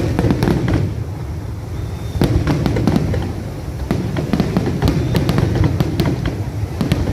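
A fireworks display going off in a dense barrage: rapid overlapping bangs and crackles over a continuous low rumble.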